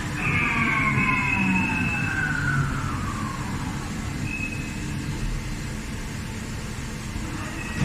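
Dörries VCE 125/160 vertical turret lathe running, a steady machine hum with a whine that falls in pitch over the first three seconds, as a drive slows.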